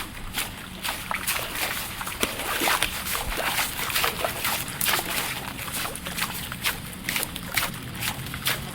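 Footsteps walking on a wet road, each step a short, wet slap on the soaked surface, at a steady walking pace.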